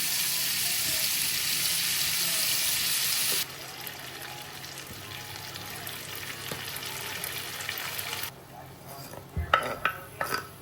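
Food sizzling in a frying pan. The sizzle is loud for the first three seconds or so, then drops suddenly to a quieter sizzle. A few sharp clatters of a utensil against the pan come in the last two seconds.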